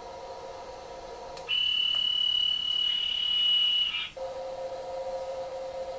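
A model-train sound module playing Taiwan Railway EMU700 sounds: a steady low electric hum, then a single steady high electronic beep lasting about two and a half seconds. The beep starts about a second and a half in, and the hum cuts out while it sounds and returns after it stops.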